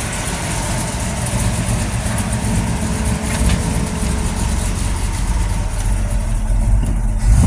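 Small-block Chevy V8 with a mild cam idling steadily, with no valve-train ticking: stiffer valve springs have cured lifters that were losing contact with the camshaft. The engine is briefly louder near the end.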